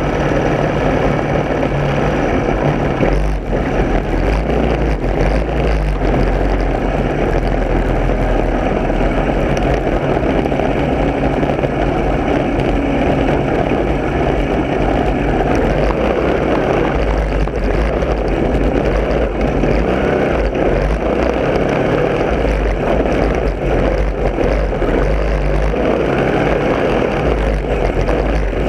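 Lawn mower engine running loud and steady throughout.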